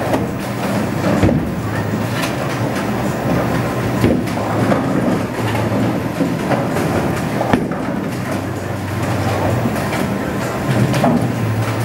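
Bowling alley din: bowling balls rolling down the lanes in a steady rumble, with sharp clatters of pins being struck several times.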